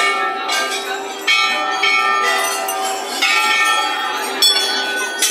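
Hanging brass temple bells struck again and again, about once a second, each strike's ring overlapping the next.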